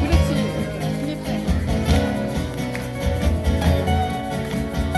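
Guitar ensemble playing music with a steady beat and a strong bass line.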